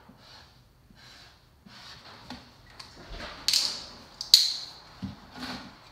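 Marker pen drawing in short, scratchy strokes on a plastic tub lid, then a utility knife scraping into the plastic, with two sharp, louder scrapes just past the middle.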